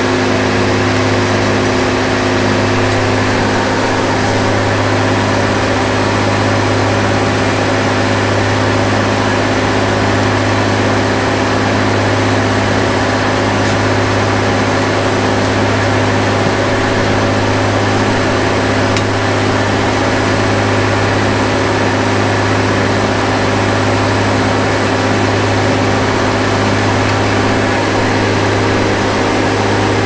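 Old circular sawmill's power unit and belt drive running steadily at an even speed, a constant engine drone with no log in the cut while the log is set on the carriage.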